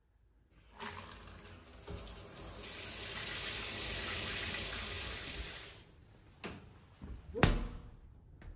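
Handheld shower head spraying water in a steady hiss that starts about half a second in, builds over the next second or so, and stops abruptly about six seconds in. After it come a few sharp clicks and one loud knock.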